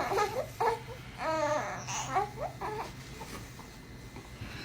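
A dog whining and grumbling in short, wavering vocal sounds, the clearest about a second in, then fainter.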